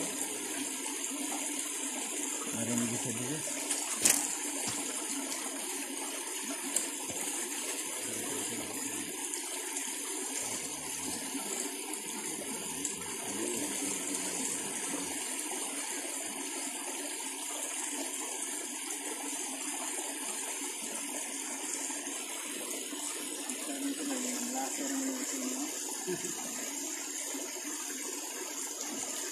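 Shallow stream running steadily over rocks, a constant rushing of water, with one sharp click about four seconds in.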